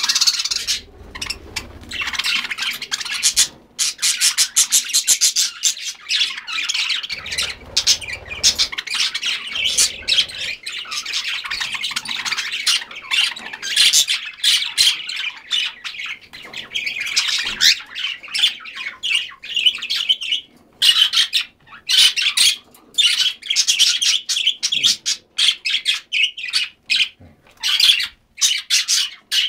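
A flock of pet cockatiels and budgerigars chattering and squawking, with rapid high calls overlapping almost without a break.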